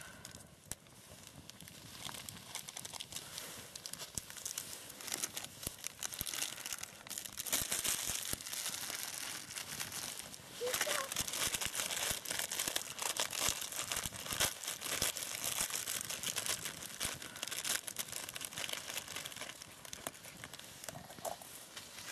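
Plastic instant-ramen wrapper crinkling and being torn, in irregular rustling handling noise that grows louder about a third of the way in.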